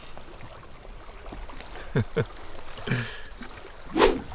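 Shallow lake water lapping gently, with two soft knocks about two seconds in and a short, louder rush of noise near the end.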